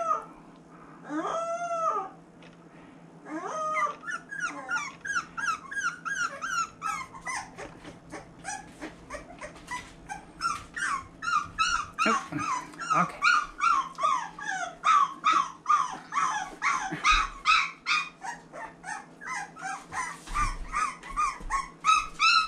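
25-day-old boxer puppies whining and yelping in short, high-pitched cries. A few come at first, then a brief lull, then a run of cries that grows louder and quicker from about halfway, at roughly three a second.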